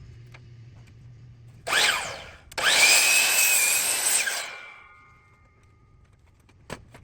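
Power miter saw: a short burst of the motor, then the saw runs again for about two seconds cutting through a thick wooden post, and the blade winds down with fading tones. A single sharp click near the end.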